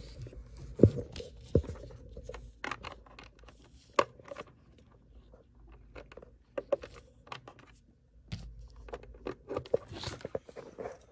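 Handling noise as a USB cable is plugged into the back of a FrSky radio transmitter: scattered sharp clicks and knocks, the loudest about a second in and at about four seconds, with scraping and crinkling of the plastic sheet under the radio and a cluster of small clicks near the end.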